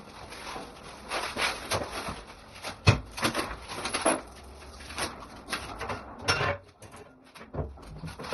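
Packaging being handled and opened: irregular rustling and scraping, with one sharp knock about three seconds in.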